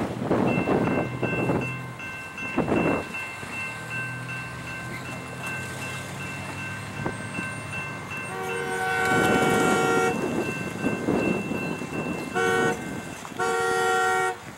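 Diesel freight locomotive approaching with its engine humming low, then its air horn sounding a long blast, a short blast and another long blast, the grade-crossing signal.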